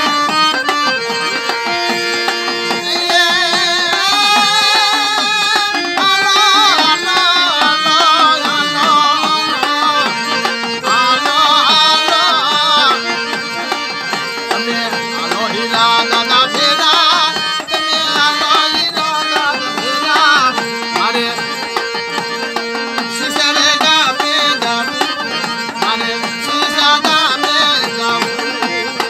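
Harmonium playing a devotional folk melody with held drone notes, over a steady hand-drum beat, with a man's ornamented singing in stretches.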